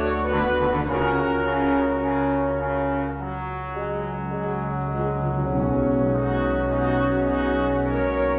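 Slow sacred instrumental music in a brass-like tone: held chords over low sustained bass notes, the bass moving to a new note about five and a half seconds in.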